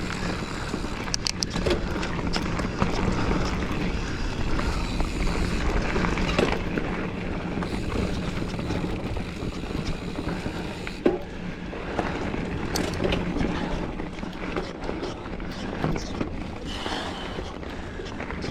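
Giant Fathom mountain bike rolling along a dirt trail: tyres rumbling and crunching over the ground, with scattered knocks and rattles from the bike over bumps.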